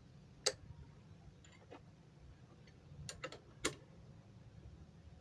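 Faint metallic clicks of steel spanners on bolts: an open-end spanner and a ring spanner being fitted and turned on the clutch bolts of a two-stroke grass-cutter engine. About five separate clicks, two of them sharper than the rest.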